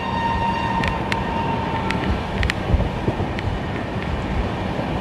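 Running noise of a moving express train heard from inside a sleeper coach: a steady rumble and rattle of the wheels on the track, with a few sharp clicks. A held high tone fades out about two seconds in.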